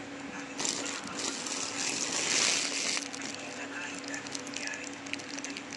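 Rustling and crinkling as small plastic figures are handled among opened plastic wrappers, loudest about two seconds in, followed by a few light clicks. A steady low hum runs underneath.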